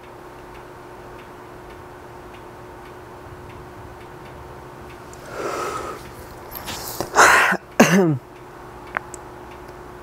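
A man's wordless vocal reaction: a breathy exhale about five seconds in, then a loud burst of breath and a short falling voiced sound around seven to eight seconds in. A clock ticks faintly over a steady room hum.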